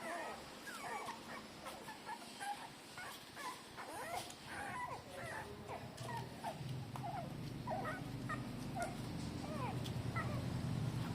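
Newborn puppies, a few days old, squeaking and whimpering in many short high cries while nursing. About halfway through, a steady low hum comes in and grows to be the loudest sound.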